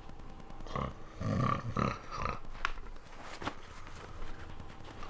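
A sleeping man making low, throaty grunting sounds several times in the first two seconds or so as a puppy climbs onto his face, followed by a couple of soft clicks.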